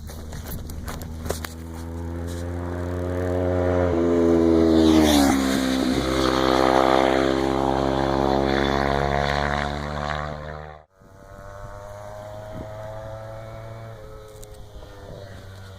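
Motorcycle engine running hard, growing louder over the first few seconds, with a brief drop in pitch about five seconds in and then a slow climb in revs. It cuts off abruptly about eleven seconds in, followed by quieter steady engine running.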